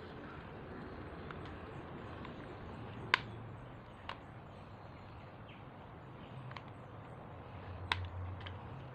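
A few sharp clicks and taps from the power tool's parts and hand tools being handled during reassembly, the loudest about three seconds in and near the end, over a steady background hiss.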